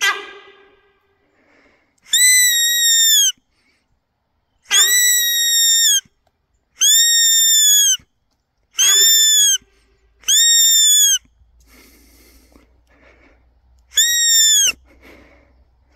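Hand-blown deer call sounded to lure sambar deer: a loud, high call about a second long that rises slightly and drops at the end, repeated seven times every one and a half to two seconds, with a longer pause before the last one.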